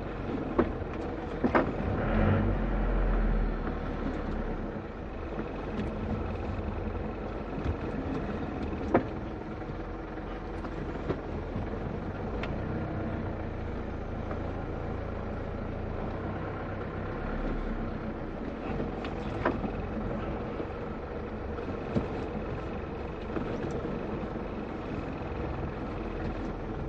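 Isuzu KB 300's four-cylinder turbodiesel running at low revs while the truck creeps slowly, heard from inside the cab. It swells briefly about two seconds in, and a few sharp clicks or knocks sound over it.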